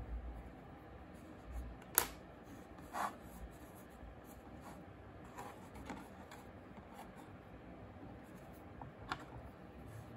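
Air-dry clay and small modelling tools handled on a tray: a sharp tap about two seconds in, a softer scrape a second later, light rubbing and ticks, and another tap near the end.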